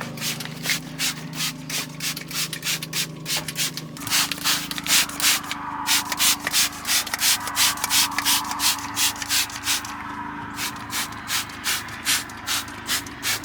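Hand trigger spray bottle squirting interior cleaner in quick repeated pulls, about three hissy squirts a second, soaking the cab. A low steady hum runs underneath.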